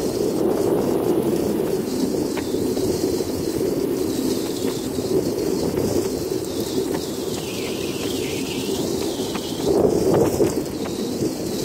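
Heavy rain pouring steadily, with runoff water splashing across the floor; it swells briefly about ten seconds in.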